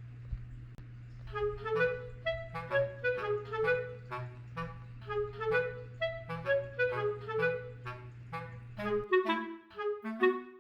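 Background music: a bouncy melody of short, quickly fading notes, a few a second. Beneath it runs a steady low hum that cuts off about nine seconds in.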